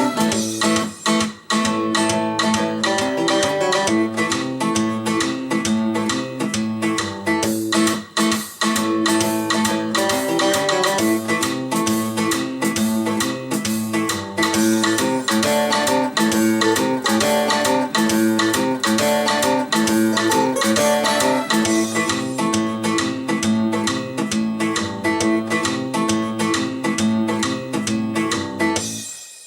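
Blues-rock guitar music played back through KEF Q Concerto Meta three-way standmount speakers driven by a Cyrus One Cast amplifier. The music fades out quickly near the end.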